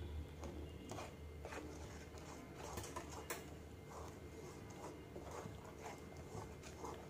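Wooden spatula stirring a watery urad dal flour mixture in an aluminium kadai: faint, irregular scrapes and light taps against the pan, over a low steady hum.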